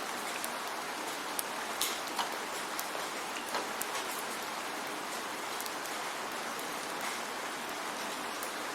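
Steady rain: an even hiss with scattered sharp ticks of single drops hitting nearby, a few louder ones in the first half.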